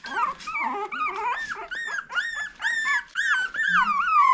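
Young puppies crying: a quick run of short, high-pitched whimpering cries, about three a second, with more than one pup at once.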